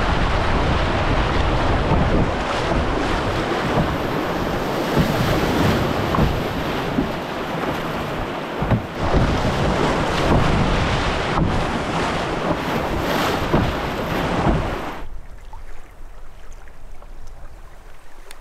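Whitewater rapid rushing loudly, with waves splashing over a canoe's bow as it runs through. About fifteen seconds in the rushing drops away to a much quieter hiss.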